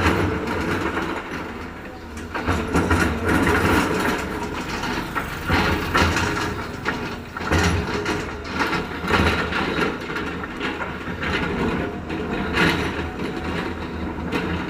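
Heavy road-construction machinery at work: a low, steady engine drone under frequent irregular knocks.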